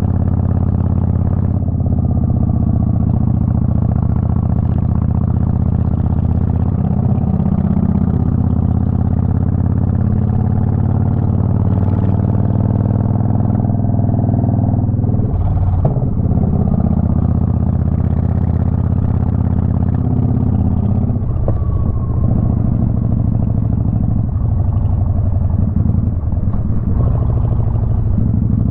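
Motorcycle engine running steadily on the road, its note changing briefly about halfway through and again a few seconds later.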